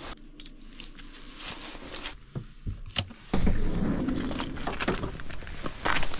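Light clicks and rustling of gear being handled. About three seconds in, a steady low noise takes over, and near the end boots step down from a van's sliding side door onto icy pavement.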